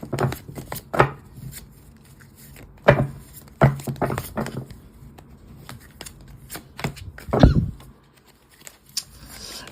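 Tarot cards being handled on a table: a series of separate sharp taps and slaps with soft rustling between them, the loudest slap about seven seconds in.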